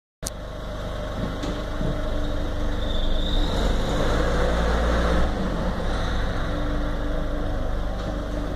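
Citroën C5 II 1.6 HDi four-cylinder turbodiesel running, a steady mechanical drone with a low rumble that grows gradually louder over the first few seconds. It carries the unexplained noise the owner calls a strange sound.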